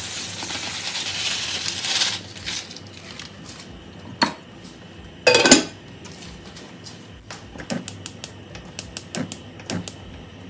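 Dry parboiled rice poured from a plastic bag into a pot of water, a rushing rattle for about two seconds. About halfway through comes a loud clatter as the glass lid goes onto the pot, then near the end a run of sharp clicks as the gas hob's control knob is turned.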